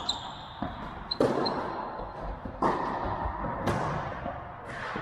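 Tennis rally on an indoor court: racket strikes and ball bounces about once a second, each with an echo from the large hall, plus a few brief shoe squeaks on the court surface.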